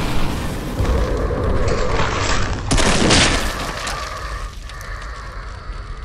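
Deep rumbling explosion booms, with a loud crash about three seconds in, then dying down.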